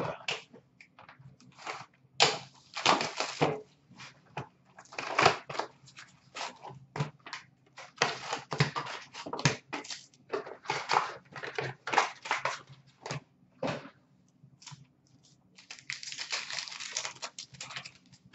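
A cardboard box of hockey card packs being handled and opened by hand: irregular rustles, taps and crinkles of cardboard and pack wrappers, with a longer stretch of crinkling near the end.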